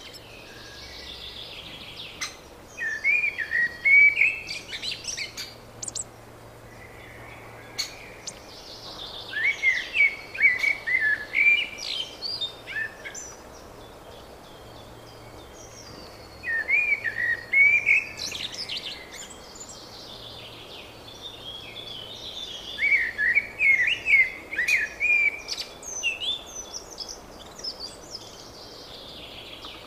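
A songbird singing loud phrases of about three seconds each, four times, roughly every six to seven seconds, over a faint steady background.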